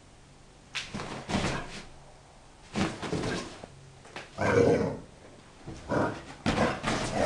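Rhodesian Ridgeback puppy romping in play, making a run of five short, rough bursts of sound a second or so apart.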